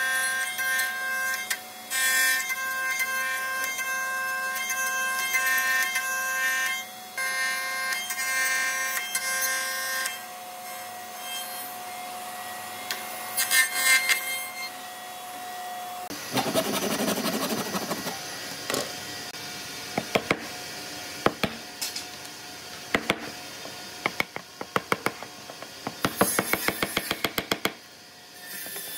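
A woodworking bench machine running with a steady whine, feeding old railway-sleeper timber, which stops about halfway through. Then a hand chisel scrapes and clicks as it digs rotten wood out of a sleeper board, with the clicks coming thick and fast near the end.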